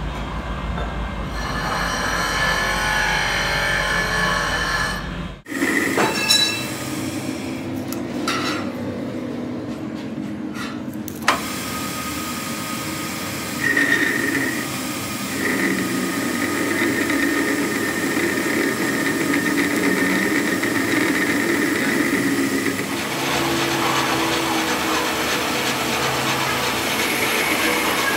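Metal lathe running while a boring bar cuts inside the weld-built-up bore of a steel part, with a steady high squeal from the tool on the steel through the middle of the cut. A steady hum in the first five seconds cuts off abruptly.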